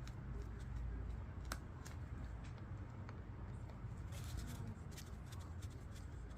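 Small clicks and light handling noises of hands working on a small-engine carburetor, with a sharper click about a second and a half in and a short cluster of clicks near four seconds, over a low steady hum.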